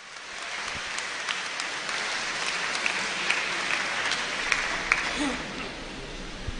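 Audience applauding, swelling quickly at the start and dying away near the end.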